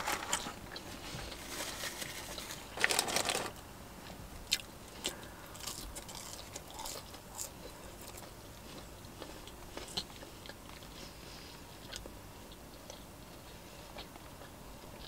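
A person chewing and biting a burger close to the microphone, with wet mouth clicks and a couple of louder bursts at the start and about three seconds in.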